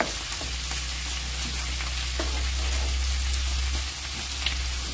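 Pork chops sizzling in lard in a frying pan, over a steady low hum, with a few light clicks of a spatula stirring tomato sauce in a second pan.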